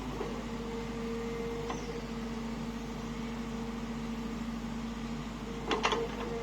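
SANY SY55C mini excavator's diesel engine running steadily, with a short cluster of sharp metallic knocks near the end.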